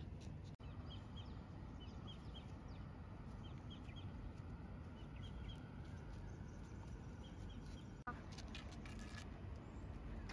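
Small birds chirping faintly in short paired and tripled chirps over a steady low background rumble.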